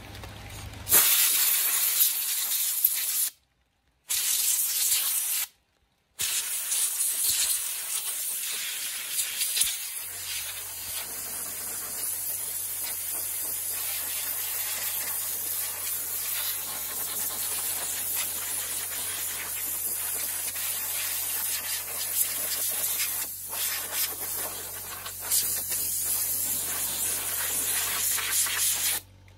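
Water spraying from a trigger spray gun on a hose onto a computer case: a steady high-pitched hiss that cuts out twice briefly in the first few seconds.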